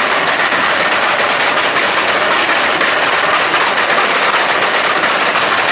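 Loud turbocharged car engine with a dense, rapid chattering crackle, the sound of turbo flutter and anti-lag popping.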